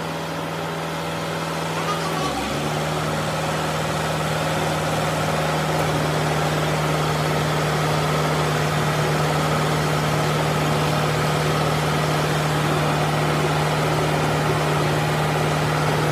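Hydraulic press running with a steady hum as its ram comes down onto a steel beam laid across a truck axle housing. The hum shifts a little about two seconds in.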